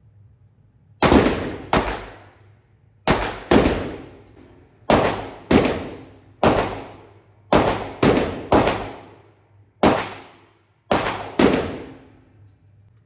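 Phoenix Arms HP22 .22 LR semi-automatic pistol firing thirteen shots in quick pairs and singles, each shot echoing off the walls of an indoor range.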